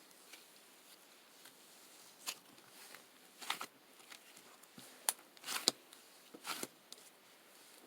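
Scattered short rustles and taps of something being handled, about five louder ones among fainter ones, over a faint steady background.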